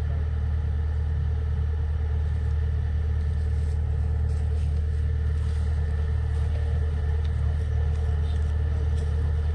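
Kubota 105X combine harvester running steadily with a deep, even drone from its engine and threshing machinery.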